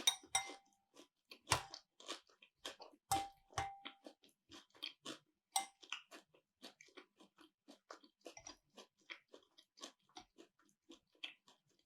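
A person chewing and biting food close to the microphone: a run of short, sharp mouth clicks, about two or three a second, louder over the first few seconds and then softer.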